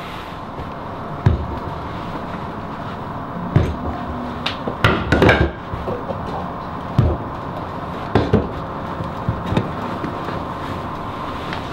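Handling noise from a wool coat being smoothed, shifted and turned over on a workbench: irregular soft knocks and thumps, busiest about halfway through, over a steady low hum.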